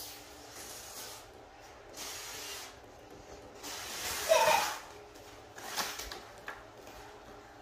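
A boy blowing into a foil balloon by mouth: a series of about five breathy, hissing puffs of air, the longest and loudest about four seconds in, carrying a brief squeaky tone.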